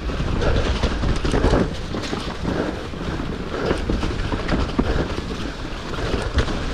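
Mountain bike being ridden on a dirt trail: a continuous rumble from the tyres and frame, with many irregular rattles and knocks from the bike and wind buffeting the microphone.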